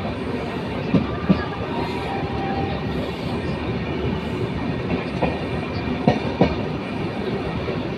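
Train running along the track with a steady rumble, its wheels clacking over rail joints in two quick pairs, about a second in and again about six seconds in.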